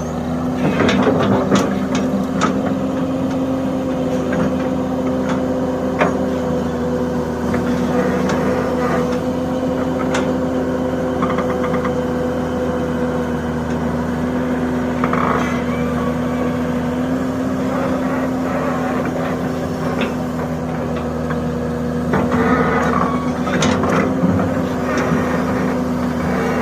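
Excavator's engine and hydraulics running steadily with a constant hum, with occasional knocks and clanks from the bucket and arm as it digs and loads sand into a dump truck.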